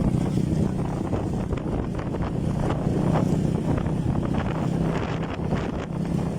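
Wind buffeting the microphone over the steady low hum of a motor running, as from a fishing boat under way.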